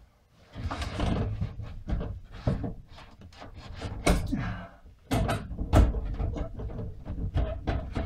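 Irregular knocks, bumps and scraping of a timber and aluminium caravan roof-hatch frame being worked loose and pulled down out of its ceiling opening by hand.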